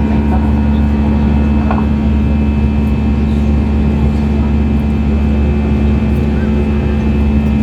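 Steady drone of an Airbus A320 heard from inside the cabin: engines running with a constant low hum and several steady tones, not rising or falling.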